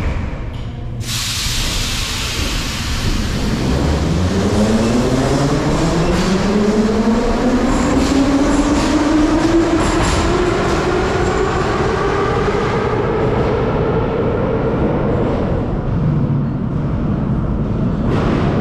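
Metrowagonmash-built metro train pulling away from a station: its traction motors whine in a stack of tones that climb steadily in pitch as it accelerates, over the rumble of the wheels on the rails.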